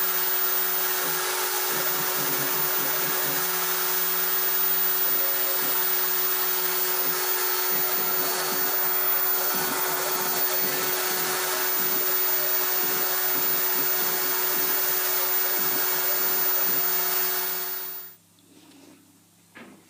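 CNC engraving spindle running at high speed while its bit cuts lettering into a plastic sheet: a steady whine over a wide hiss, with a rough, fluctuating cutting noise underneath. It cuts off abruptly near the end, leaving faint handling of the sheet.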